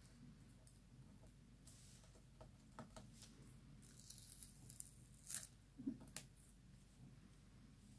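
Faint rustling and crackling of tape or masking being peeled off a foiled card by hand, with a few sharper crackles between about four and six seconds in.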